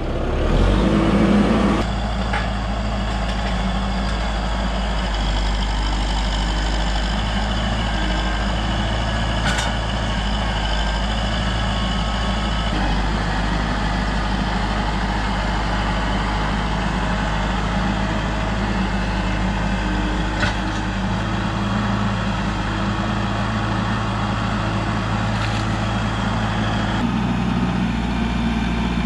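Kubota tractor's diesel engine running steadily as the tractor drives about, its note shifting slightly a few times.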